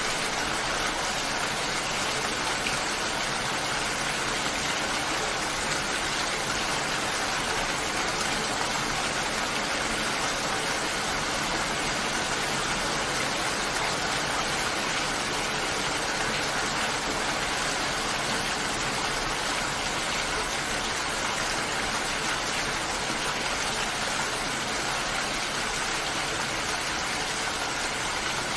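Steady rainfall: an even, unbroken hiss of rain with no single drops standing out.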